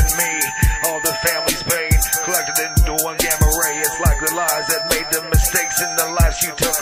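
Hip hop song with rapped vocals over a beat of a kick drum about one and a half times a second and a fast run of hi-hats.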